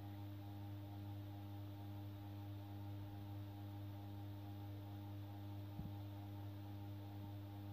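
Steady low electrical hum, mains-type, with a fainter pulsing tone above it; a single short click about six seconds in.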